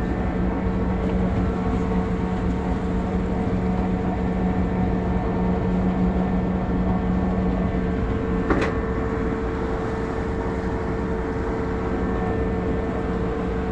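A motor running steadily, a low rumble with a constant hum, and a single sharp click a little past the middle.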